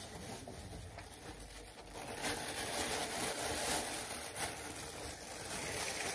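Soft rustling and handling noise: a towel and gloved hands moving around the shoulders and hair, under a steady hiss, a little louder from about two seconds in.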